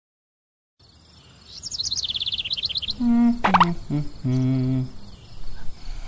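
Cartoon birdsong: a rapid chirping trill sliding down in pitch, starting out of silence about a second in. It is followed by a few short pitched sounds with a quick glide and a held low hum.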